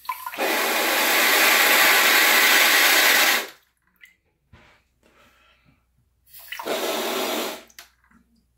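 Toilet bidet attachment spraying water from its nozzle on the rear-wash setting, the jet hitting plastic wrap stretched over the bowl. There is a steady spray of about three seconds, then a second, shorter burst later on.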